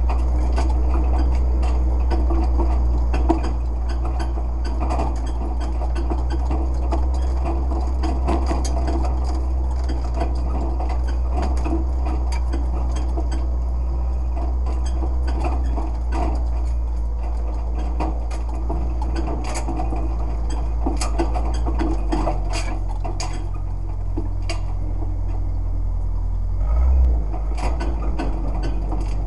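Vehicle engine running low and steady as it crawls over a rough stony dirt track, with loose metal on the body and rack rattling and clanking over the bumps. The engine note changes about two-thirds of the way through, and there is a short heavy thump near the end.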